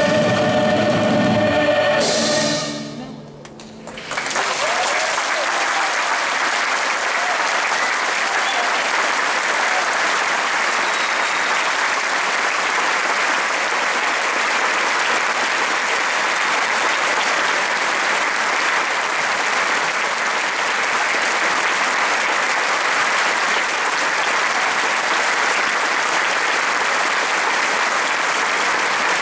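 Choir and orchestra hold a final chord, which cuts off about two seconds in and rings briefly in the hall. About four seconds in, a concert audience breaks into steady applause.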